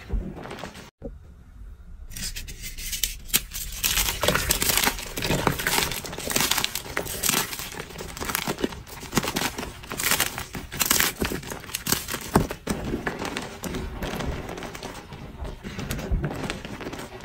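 Gym chalk powder and dyed chalk chunks being squeezed and crumbled by hand in a bowl, a dense run of soft crunching and crackling. A brief break comes about a second in, and the crunching is heaviest through the middle.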